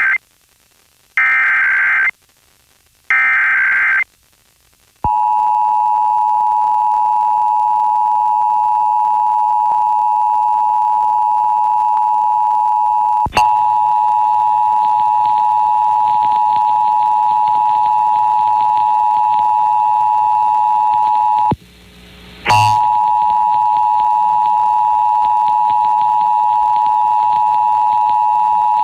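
Emergency Alert System broadcast over FM radio: the last bursts of the SAME digital header, each a one-second screech of data with a one-second gap, ending about 4 s in. A second later the steady two-tone EAS attention signal starts. It clicks once partway through, cuts out for about a second, then resumes.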